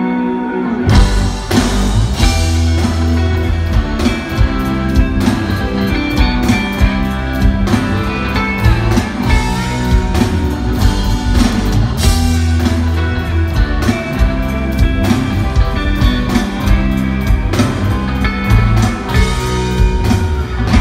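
Live rock band playing electric guitars and a drum kit. A guitar intro gives way about a second in to the full band with a steady drum beat.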